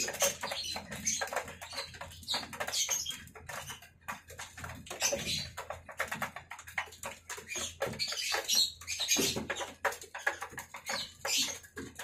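Young racing pigeons pecking grain from a trough feeder: rapid, irregular clicks and taps of beaks on the feed and the trough.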